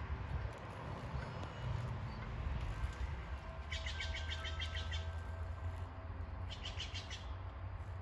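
A bird calling in two quick trills of rapidly repeated high chirps, the first about a second long and the second shorter, over a steady low rumble.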